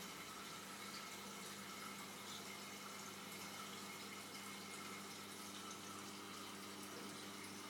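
Aquarium water circulation running: a faint, steady wash of moving water with a low steady hum underneath.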